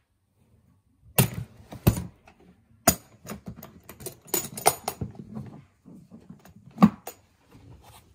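Metal draw latches on a hard plastic carrying case snapping open with sharp clicks, then a run of clicks, knocks and rattling as the lid is lifted and the case handled.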